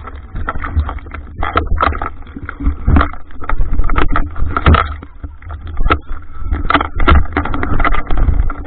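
Water splashing and sloshing against a waterproof camera as it is moved in and out of the sea, in short, uneven bursts over a muffled low rumble on the housing.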